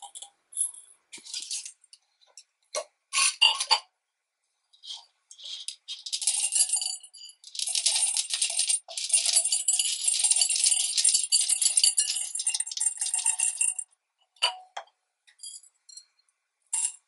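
Small wooden beads being poured from a wooden bowl into a glass mason jar: a dense rattling clatter lasting about eight seconds, with scattered clicks of beads being handled before and after.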